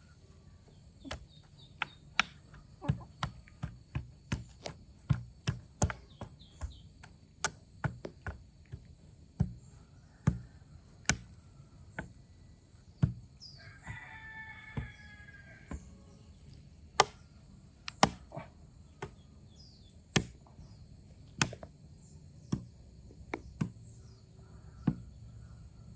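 Repeated sharp strikes of a shovel blade digging into soil, irregular, about one or two a second. A fowl calls briefly about halfway through.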